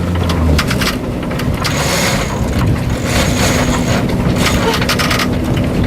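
A boat's engine running steadily against a gale, under loud wind rushing past the microphone, with scattered knocks from the boat.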